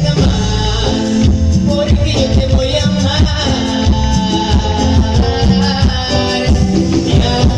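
Loud Latin American dance music with a steady bass-heavy beat, shakers and a singing voice.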